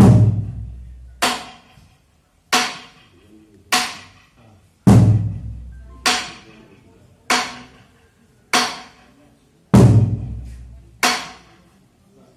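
Slow, steady drum strokes keeping time for a dance, about one every 1.2 seconds. Every fourth stroke is a deeper, booming one that rings on longer.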